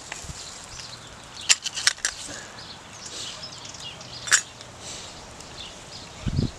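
Footsteps and movement in dry leaf litter and twigs: a few sharp cracks and crackles, with faint bird chirps in the background and a low thump near the end.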